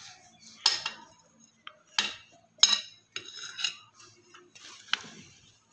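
Metal tools and small metal pump parts clinking and tapping against each other, with about four sharper clinks among lighter rattling, as a diesel fuel injection pump is taken apart by hand.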